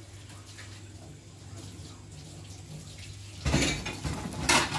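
Chapati cooking in a frying pan: a quiet steady background, then two short loud sizzles about three and a half and four and a half seconds in as oil is poured and spread over the flatbread in the hot pan.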